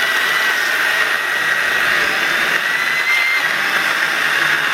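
Sainlogic 6-inch battery-powered mini chainsaw running steadily as it cuts through a piece of wood, a high motor whine over the hiss of the chain. It keeps running under load without stalling.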